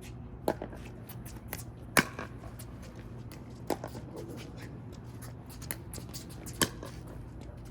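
Pickleball rally: paddles striking the ball in sharp pops one and a half to three seconds apart, the loudest about two seconds in, with fainter clicks between.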